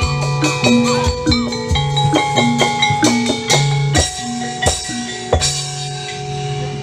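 Instrumental background music: a drum beat under a melody, with the drum hits stopping about five and a half seconds in and the music fading slightly after that.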